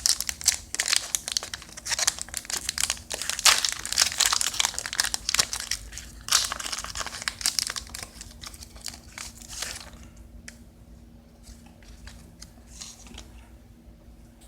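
Pokémon card booster pack's foil wrapper crinkling and tearing as it is opened by hand, loudest about four seconds in. It is followed by softer scattered rustling for the last few seconds.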